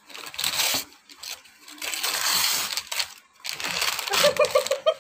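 Wrapping paper and tissue paper crinkling and rustling in three bouts as parcels are pulled out of a cardboard box, with a short laugh near the end.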